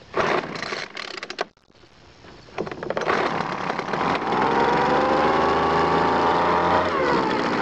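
Weed Eater FeatherLite leaf blower's two-stroke engine pull-started on choke: the recoil starter rattles for about a second and a half, then the engine catches about three seconds in and runs steadily, dipping slightly in pitch near the end. It starts and runs on its newly replaced fuel lines.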